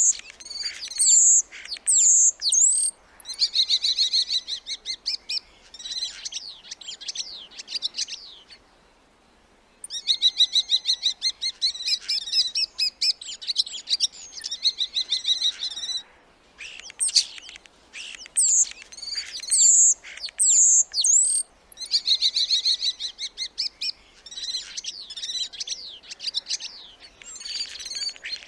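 Starling singing: sharp whistled notes that slide up and down, alternating with long runs of fast rattling, clicking chatter, with a short pause about nine seconds in and another around sixteen seconds.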